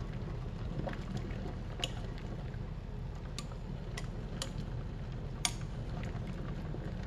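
Water at a rolling boil in a stainless steel pot with a slab of beef being blanched in it, a steady low bubbling. A few light clicks come as wooden chopsticks prod the meat and touch the pot.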